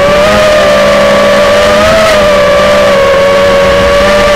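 FPV racing quadcopter's brushless motors and propellers whining steadily in flight, loud and close to the onboard camera's microphone. The pitch wavers, rising a little about two seconds in and settling back.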